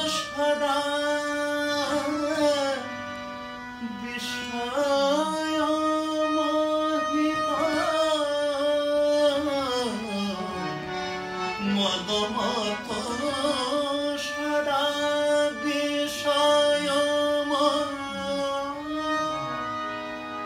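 A man singing a Bengali devotional song (bhajan) with long held notes, accompanying himself on a Bina harmonium that sustains steady chords beneath the voice. About ten seconds in the melody falls to a lower phrase before rising again.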